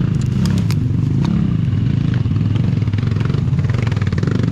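Enduro dirt bike engine running steadily at a fast idle, with a few sharp clicks in the first second.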